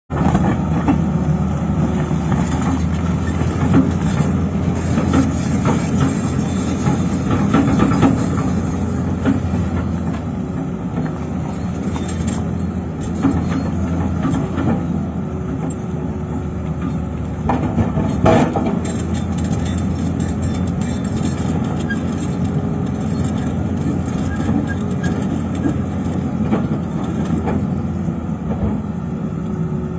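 Excavator's diesel engine running steadily under work, with occasional sharp metallic knocks, the strongest about eighteen seconds in.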